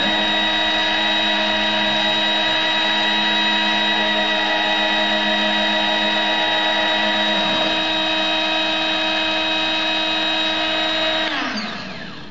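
Proxxon MF70 mill's small spindle motor running with a steady high whine made of several tones while it mills 4 mm plywood under CNC control. About eleven seconds in the spindle is switched off and the whine falls away in pitch as it spins down.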